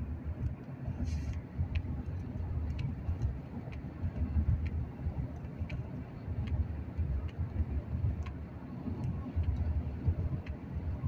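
Steady low road rumble heard from inside a moving car's cabin: tyre and engine noise while driving, with faint scattered clicks.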